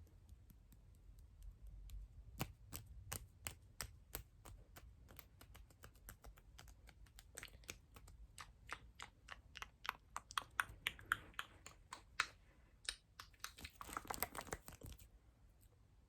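Close-miked ASMR clicks and taps, quick and irregular like typing, coming thickest in a rapid flurry near the end before they stop.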